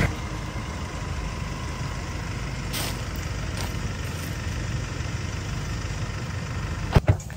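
Car engine idling with a steady low rumble, and one sharp knock near the end.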